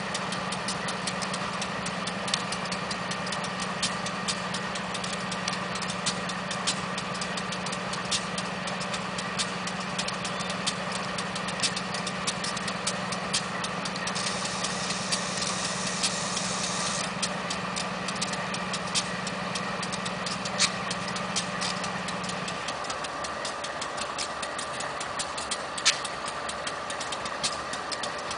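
GE CW40-8 diesel-electric locomotive idling: its V16 diesel runs with a steady drone and frequent sharp clicks. A hiss starts about halfway through and lasts a few seconds, and a steady low hum cuts out about two-thirds of the way in.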